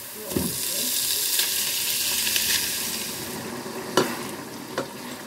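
Ground pork dropped into hot oil with sautéed onion and garlic: a soft thump, then a loud sizzle that fades after about three seconds. Two sharp clicks follow near the end.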